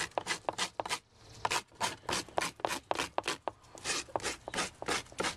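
A scraper rasping algae off an algae turf scrubber screen in quick repeated strokes, about three or four a second, with a short pause about a second in.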